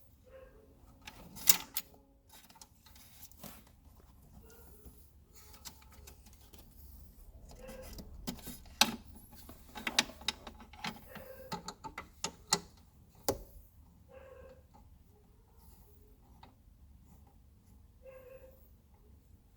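Irregular clicks and knocks of hard plastic and metal car-seat parts being handled and worked by hand, with a few louder sharp clacks scattered through.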